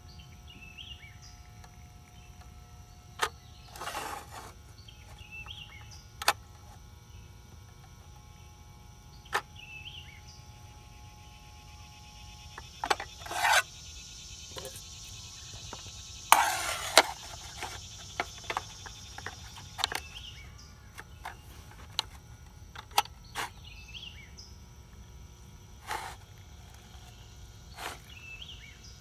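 Scattered sharp metal clicks and clanks as a Do-it bank sinker mold and the valve lever of a Lee bottom-pour lead pot are handled while casting lead sinkers, with the loudest clatter about sixteen seconds in. Insects chirp steadily underneath.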